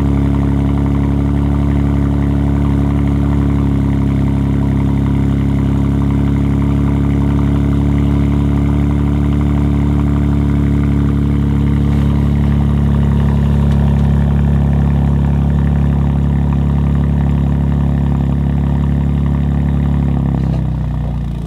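BMW M3 G80's twin-turbo straight-six idling steadily through an R44 Performance exhaust, a deep even drone from the tailpipes. The sound drops away just before the end.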